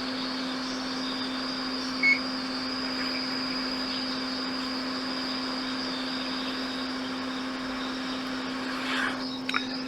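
Hot air rework station blowing steadily, a hiss with a steady hum under it, heating a chip on a MacBook logic board to desolder it. A short beep sounds about two seconds in.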